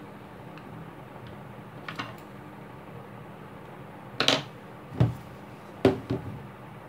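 Handling noise: a few short knocks and taps, loudest near the end, over a steady low hum.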